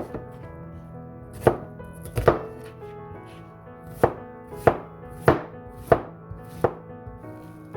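Knife chopping onion: single sharp strikes at an uneven pace, about nine of them.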